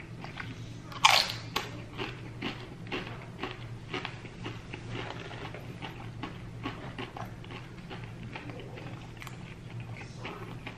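Crisp tortilla chips bitten and chewed with a loud crunch about a second in, then repeated crunching as they are chewed.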